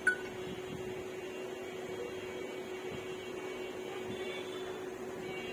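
Steady electrical hum holding one low tone, over a faint hiss. A last short marimba-like note ends right at the start.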